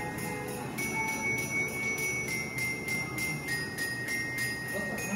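Christmas background music led by jingle bells shaken on a steady beat, about four times a second, with a bell-like tune stepping between notes above it.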